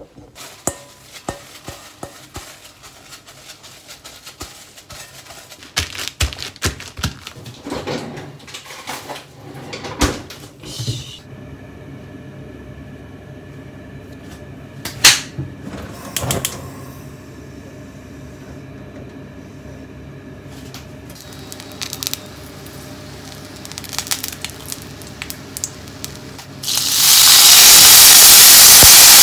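Scattered kitchen knocks and clicks as gyoza are handled and set into a frying pan. Near the end, water poured into the hot pan sets off sudden, loud, steady sizzling: the gyoza being steam-fried.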